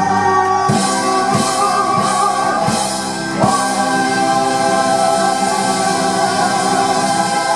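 Male singer and a live rock-and-roll band performing a gospel ballad, holding a long sustained chord with voice and saxophone over cymbal wash. Drum strokes land about every 0.7 s through the first half, building toward the song's finish.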